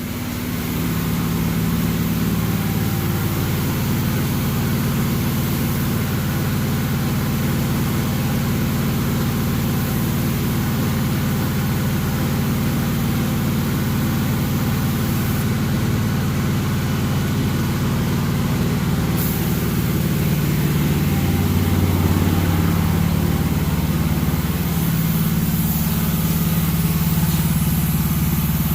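A motor running steadily with a low, engine-like drone and a hiss above it; its pitch shifts about two-thirds of the way through.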